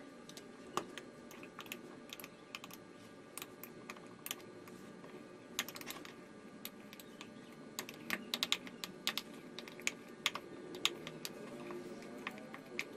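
A spoon stirring a thick honey-and-spice paste in a jar, clicking and scraping against the jar in quick, irregular taps.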